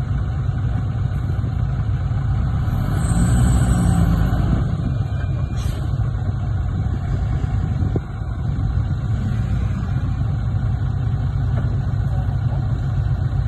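Heavy diesel engine of a Komatsu D58P bulldozer running steadily, briefly rising in pitch and level about three seconds in, with a short high squeal at the same moment.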